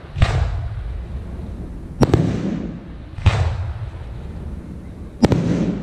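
Aerial firework shells launching and bursting: four loud booms one to two seconds apart, the second a quick double, each trailing off in a rolling echo.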